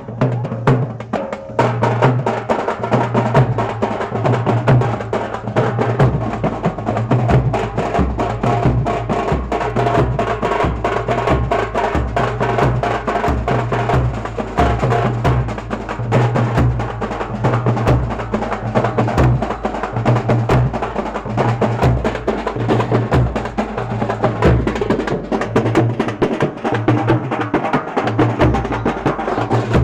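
Loud drum-led music: rapid, dense percussion strokes over a repeating low bass beat.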